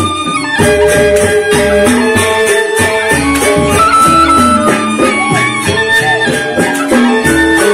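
Lombok Sasak saron ensemble playing: rows of metallophones struck with mallets and a two-headed kendang drum, with held melody notes above.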